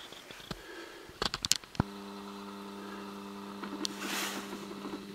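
A few sharp clicks, then a camcorder's zoom motor whirring steadily for about three seconds as the lens zooms in. The whir is one unchanging tone that starts with a click and cuts off suddenly.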